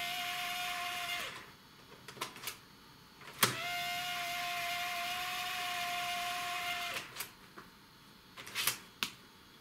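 Internal floppy drive of a Compaq LTE Elite 4/50CX laptop straining to read a disk. A steady, buzzy whine runs for about a second, then again for about three and a half seconds from around three and a half seconds in, each run starting with a click. Single mechanical clicks come between and after the runs. The drive's belt is worn out, so the drive cannot read the disk.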